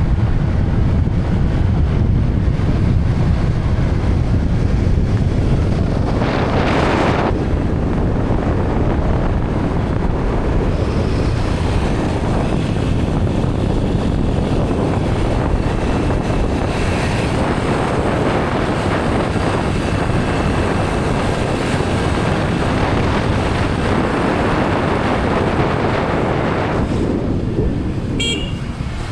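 A vehicle driving along a road, with steady wind buffeting the microphone and a brief louder gust about a quarter of the way in.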